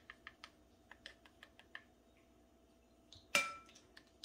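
A measuring spoon scooping ground cinnamon from a spice jar, with a string of light clicks and scrapes, then a little over three seconds in a single sharp, ringing clink against the glass mixing bowl.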